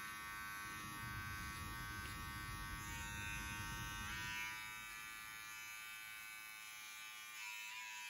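Small electric beard trimmer buzzing steadily as it cuts the beard along the cheek, shortening the sideburns.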